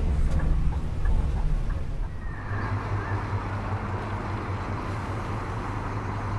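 Low rumble of a bus on the move, heard from inside the cabin. About two seconds in it cuts to a steadier low engine hum with a light hiss, a vehicle engine idling.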